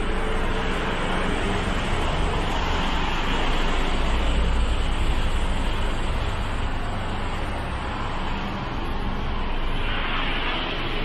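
Road traffic of buses and taxis: steady engine and tyre noise, with a deeper engine rumble swelling about four to five seconds in.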